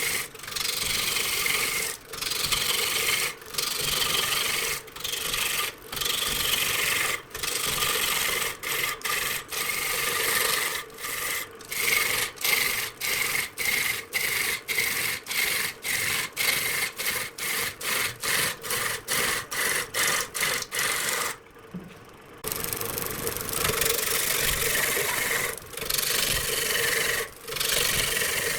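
Rasping strokes of a hand tool worked back and forth over wood. The strokes come about once a second at first, quicken to about two a second, pause briefly after the middle, then go on in longer strokes.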